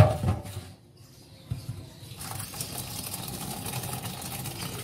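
A sharp metal knock at the start, then from about two seconds in a steady splashing hiss as hot water from boiled rice is poured through a steel colander into a stainless-steel sink.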